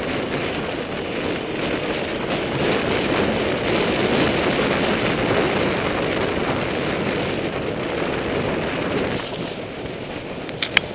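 Dual-sport motorcycle riding on a gravel road, heard from a camera mounted on the bike: a steady rush of wind on the microphone mixed with engine and tyre-on-gravel noise, easing slightly near the end. Two sharp clicks come just before the end.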